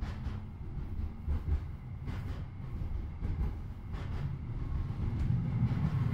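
Tram running, heard from inside the passenger car: a steady low rumble of wheels on rails, with a few short knocks and rattles scattered through it.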